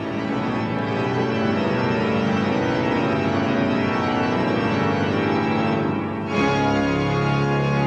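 Music of sustained, held chords with an organ-like sound, shifting to a fuller, lower chord about six seconds in.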